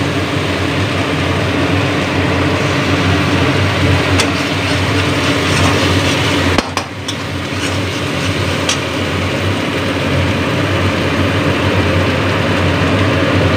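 Onion-and-spice paste frying in a steel wok, stirred with a long steel spoon that clinks against the pan a few times, over a steady mechanical hum.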